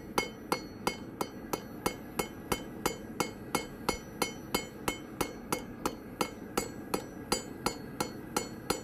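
Hand hammer forging hot mild steel on an anvil, with steady blows about three a second, each with a ringing clang. The smith is finishing off the shape of a forged leaf. The blows stop near the end.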